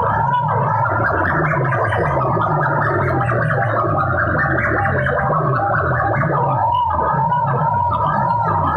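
Banks of horn loudspeakers blasting heavily distorted music at full volume, in a sound-system competition. A wavering, siren-like tone rides over a stepping bass line, harsh and overloaded with little treble.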